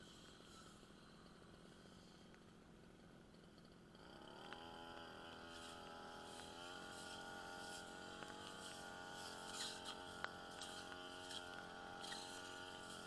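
Brush cutter engine idling faintly, then revving up about four seconds in and running steadily at a higher speed.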